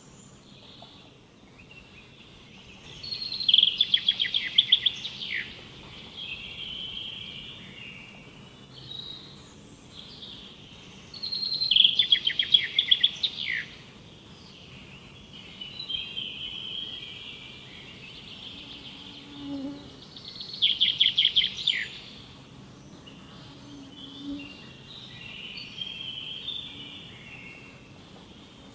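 Songbird singing in a forest: three loud phrases, each a fast run of sharp notes, about eight seconds apart, with softer chirping and twittering between them over faint steady background noise.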